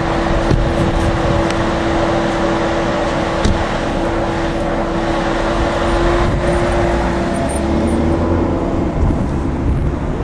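Steady running noise of a motor vehicle with a constant hum, joined by a lower drone about seven and a half seconds in.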